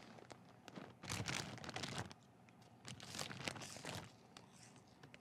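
Crinkly snack-chip bag being torn open and rummaged, in two crackling rustles of about a second each.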